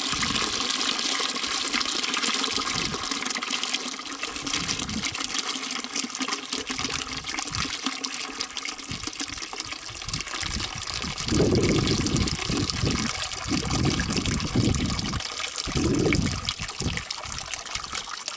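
Thin, watery mud pouring and trickling steadily from a tilted wheelbarrow into a plastic tub. A few louder low bumps come in the second half.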